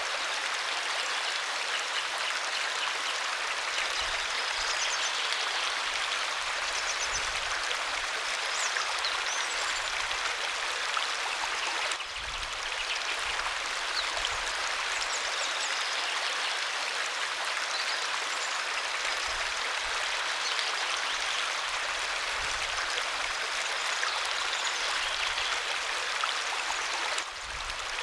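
Waterfall: a steady rush of falling water, strongest in the upper-middle range, with two brief dips in level, about twelve seconds in and near the end.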